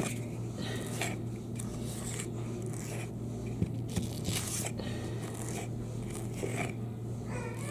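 Putty knife spreading and scraping patching plaster across a drywall patch, in short scraping strokes about one a second, over a steady low hum.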